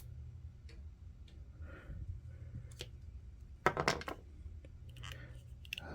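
Small plastic action-figure parts being handled and worked apart, giving a few faint clicks and one louder brief cluster of clicks a little past halfway, over a low steady hum.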